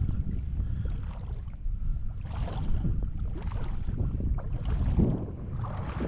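Wind buffeting the microphone in a steady low rumble, with short rushing swells about two and a half and five seconds in.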